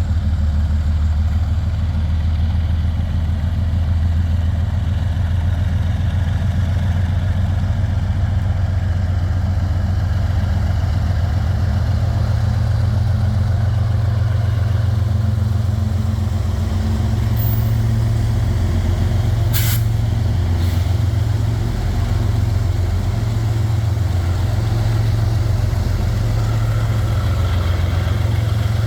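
Diesel engines of two GE ES44AH locomotives working as the freight train pulls away, a loud steady low throb. A single sharp click sounds about twenty seconds in.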